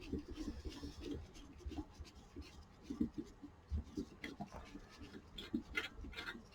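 Light scraping, small taps and clicks of plastic and metal rice cooker parts being handled and worked loose during disassembly.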